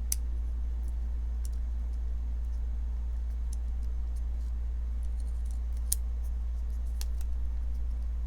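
Small metal clicks and ticks of pocketknife parts being handled and fitted together during reassembly: five or so sharp ticks a second or two apart, the loudest about six seconds in, over a steady low hum.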